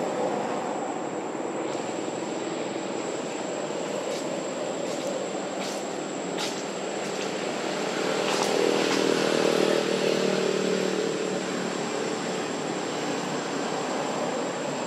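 Steady background hiss with a thin high whine throughout, and a few faint clicks. About eight seconds in, a distant engine drone swells for about three seconds and then fades, as of a motor passing by.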